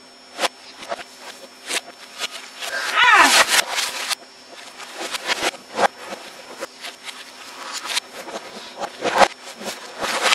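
Computer keyboard clattering with quick irregular clicks and knocks as it is typed on and struck, played backwards. About three seconds in, a short voice-like cry slides down in pitch.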